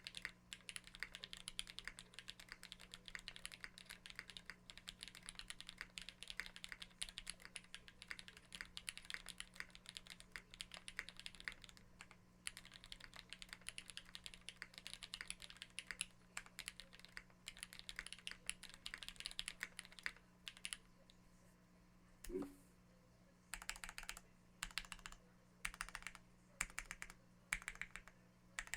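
Custom TKL mechanical keyboard with lubed Cherry MX Black linear switches in an aluminium top-mount plate and GMK keycaps, typed on quickly and continuously for about twenty seconds. After a short pause comes a single low knock, then a handful of short, separate bursts of keystrokes.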